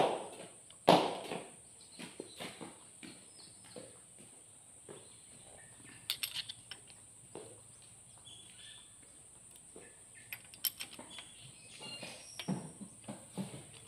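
Metal hand tools clicking and clinking against a rocker arm's adjusting screw and locknut on a six-cylinder diesel cylinder head while the valve clearance is set. Two louder knocks come near the start, then scattered light clicks, with a small cluster about six seconds in and more near the end.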